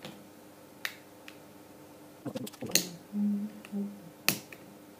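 Sharp clicks and snaps of hand tools and the iPod Touch 5's casing being handled as it is pried open, a cluster of them about halfway through and one loud snap near the end.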